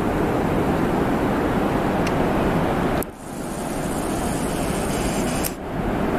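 Steady rushing of wind and surf on the camera microphone, with two brief dips where the recording is cut.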